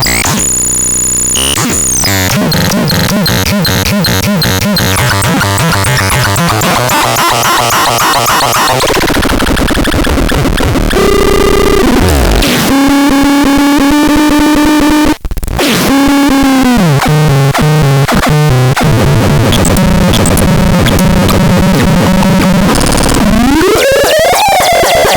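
Electronic synthesizer noises from the FADERAN sound demo: harsh, buzzy tones that keep changing character, with held pitched drones, a brief cut-out about 15 seconds in, and a rising pitch glide near the end.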